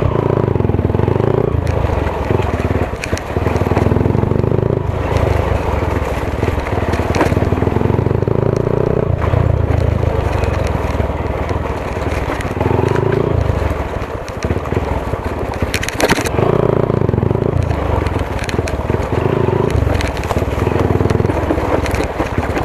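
Hero Honda CBZ Xtreme single-cylinder four-stroke motorcycle engine riding over a rough dirt trail, its revs rising and falling every couple of seconds as the throttle opens and closes. Tyres crunch and the bike rattles over the uneven ground, with a sharp knock about 16 seconds in.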